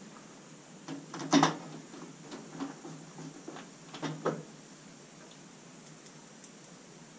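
Several sharp clicks and knocks of hard parts being handled, the loudest about a second and a half in, then lighter ones and a pair near four seconds.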